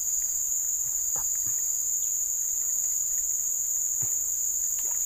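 A steady, high-pitched insect chorus that neither rises nor falls, the loudest sound throughout.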